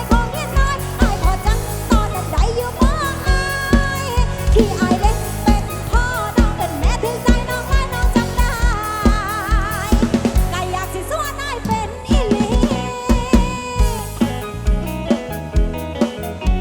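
Loud Isan luk thung band music from a rot hae sound-truck band: a drum kit with bass drum and snare keeps a steady beat under a wavering lead melody. The bass drops out briefly about two-thirds of the way in before the beat comes back.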